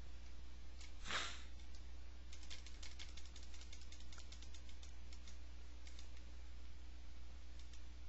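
Quick run of small clicks on computer controls, about eight a second, from about two to five seconds in, then a few scattered single clicks: stepping video-analysis software forward frame by frame. A short soft rush of noise comes about a second in, over a steady low electrical hum.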